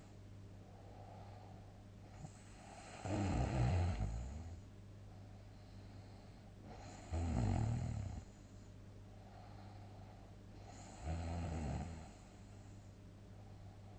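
A person snoring loudly: three rough, low snores about four seconds apart, over a steady low hum.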